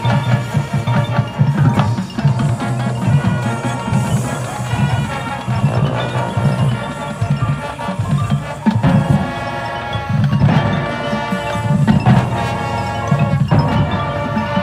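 High school marching band playing its field show: brass chords over drums, with mallet percussion ringing through.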